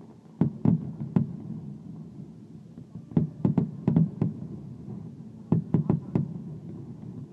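Fireworks shells bursting in quick succession: three volleys of sharp bangs, three early on, five in the middle and four more about two-thirds of the way through, over a steady low background rumble.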